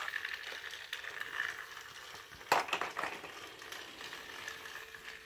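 Faint clicking and rattling from a plastic Thomas the Train toy track set, with one sharp clack about two and a half seconds in.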